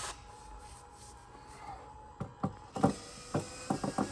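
A power drill stops right at the start. A faint steady hum follows, then about two seconds in a quick series of sharp clicks and knocks.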